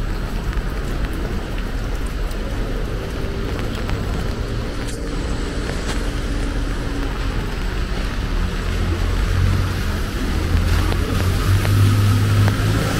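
Road traffic on a city street: a motor vehicle's engine running close by, its deep hum growing louder in the second half.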